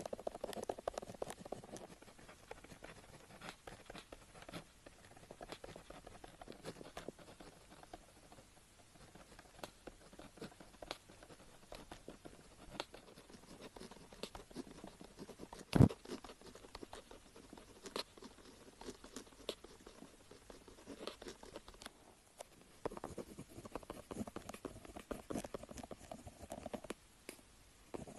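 Pen tip scratching and tapping on paper in short, irregular strokes, with one sharp knock about sixteen seconds in.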